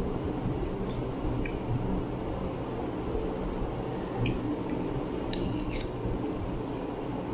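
Metal spoons scraping and lightly clinking against small glass bowls of ice cream: a few faint taps about a second and a half in, one at four seconds, and a little cluster between five and six seconds. Under them runs the steady hum of an electric fan.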